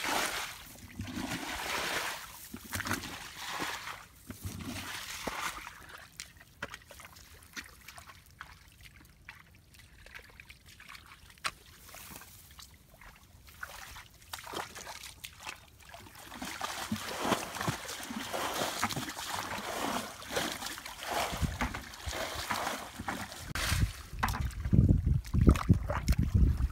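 Small fish wriggling and splashing in a shallow, muddy rice-field ditch, with irregular wet patters and trickles. They are sparse for a while, then grow busier, and heavy low thumps come in near the end.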